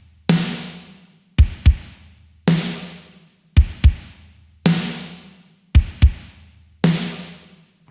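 Background music: a drum intro of two quick bass-drum kicks followed by a loud ringing hit that fades out, repeating about once a second with short silences between.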